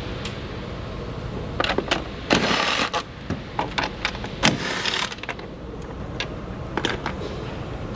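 Hand tools clicking and rattling against metal in a car's engine bay as the battery bracket's bolts are worked loose, with two louder rattling bursts about two and four and a half seconds in.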